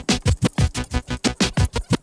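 Electronic dance music with a fast, heavy, regular beat.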